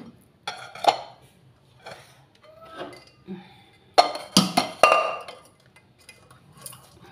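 Crabs knocking and clinking against a stainless steel pot as they are handled and lifted out, with a few sharp knocks about a second in and a louder cluster of clatters around four to five seconds in.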